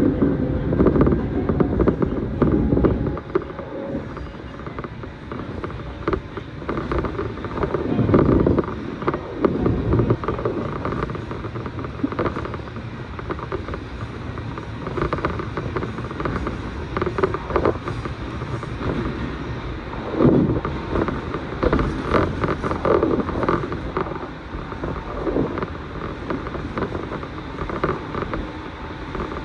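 Inside a commuter train car: a low rumble with irregular knocks and creaks from the car body, swelling louder a few times.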